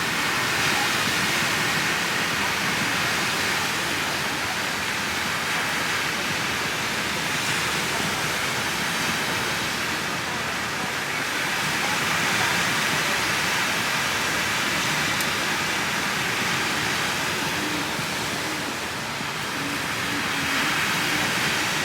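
Steady rushing noise, even and continuous, with no distinct events.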